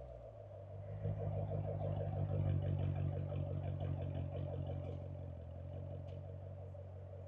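A low, steady engine-like hum with a fast throb. It swells about a second in and eases off again after the middle.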